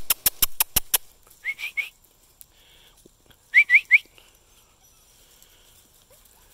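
A quick run of sharp clicks, then short rising whistles in two sets of three, the second set louder: a person whistling to call puppies along.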